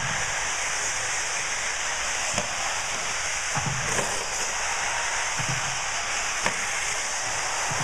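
1/8-scale RC off-road buggies racing on a dirt track: a steady high-pitched hiss of motors and tyres, broken by several short thumps as the buggies land and hit things.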